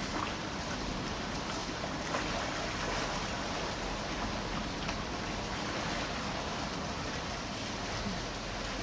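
Pool water sloshing and splashing around Asian elephants wading and rolling in it: a steady wash of water noise with a few small splashes.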